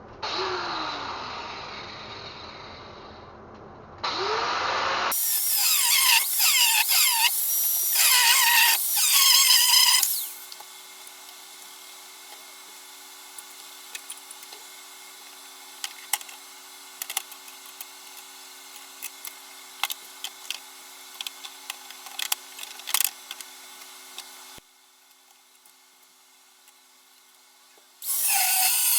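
Power tool cutting steel bed-frame pieces, its pitch bending as it bites into the metal, in loud stretches. Between them is a quieter steady hum with scattered clicks, and the sound changes abruptly several times.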